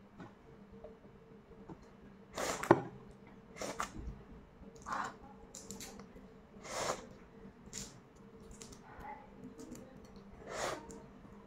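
Fingers peeling cracked shell off boiled balut eggs: a series of short crackling crunches, about six in all, the loudest about two and a half seconds in. A faint steady hum lies underneath.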